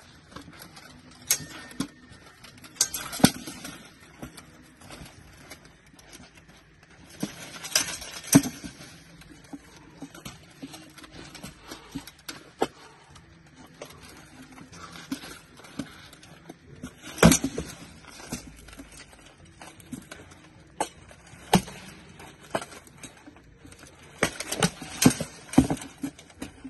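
Sword blows striking shields and plate armour in an armoured sparring bout, heard as sharp knocks and clanks. They come in short flurries a few seconds apart, the loudest about 8, 17 and 25 seconds in.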